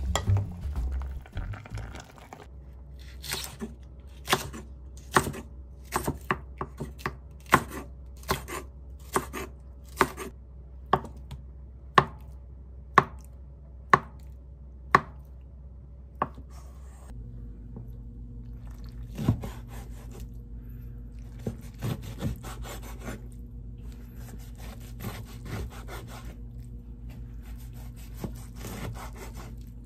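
A crinkle-cut knife slicing a block of tofu on a wooden cutting board, the blade tapping the board about once a second. About halfway through, this gives way to the knife sawing through a wedge of napa cabbage kimchi, a rustling back-and-forth with a few soft thuds on the board.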